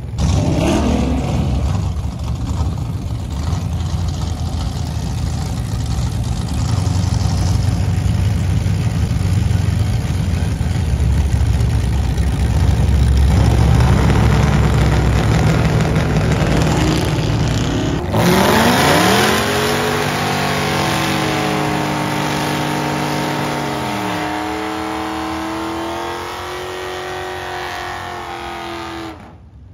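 Drag-race cars at full throttle: a loud, dense engine rumble for most of the first two-thirds. After a sudden cut, an engine revs up and is held at high rpm for several seconds during a tyre-smoking burnout, then stops.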